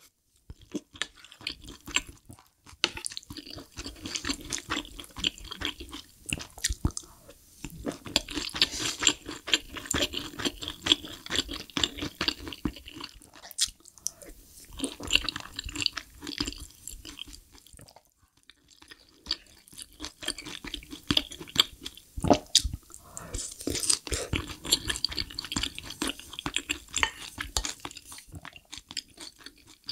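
Close-miked chewing and wet mouth sounds of a person eating soft mapo tofu and fried rice. It comes in bouts broken by short pauses, with occasional sharp clicks of a spoon and chopsticks against the dishes.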